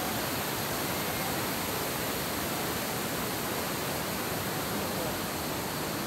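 Yudaki Falls, a broad cascade sliding down a rock face, rushing steadily, heard close to its base.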